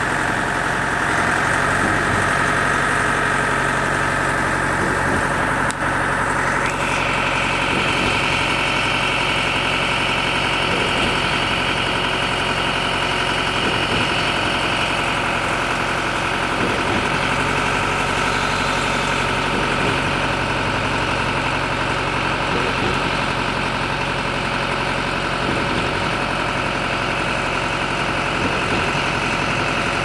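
Truck-mounted concrete boom pump's diesel engine running steadily while pumping concrete up the boom, with a whining tone that steps up in pitch about seven seconds in.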